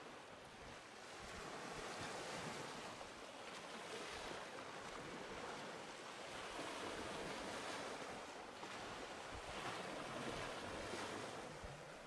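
Small waves breaking and washing up onto a sandy shore, the surf swelling and easing every few seconds.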